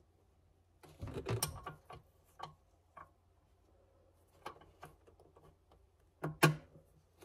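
Small clicks and rattles of a headlight bulb and its wire retaining clip being worked into the headlight housing by hand, with a sharper, louder click a little past six seconds in as the clip catches.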